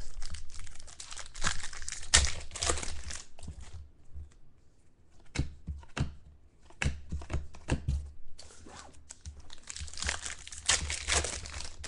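Trading-card pack wrappers being torn open and cards handled: crinkling, tearing wrapper noise in bursts near the start and again near the end, with scattered light clicks and rustles of cards in between.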